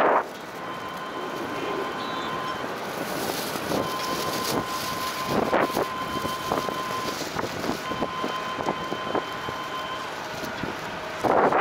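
Distant jet aircraft noise as a steady hiss, with a thin high tone that comes and goes and scattered clicks. A gust of wind buffets the microphone near the end.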